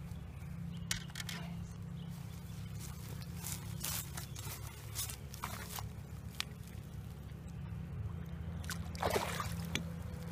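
Scattered small knocks and rustles of handling, then water sloshing and a splash in shallow lake water about nine seconds in, as a bass is released by hand at the shore.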